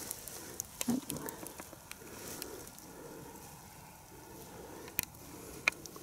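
Rustling and crackling of dry leaves and twigs underfoot in brushy undergrowth, with a few sharp snaps about a second in and twice near the end.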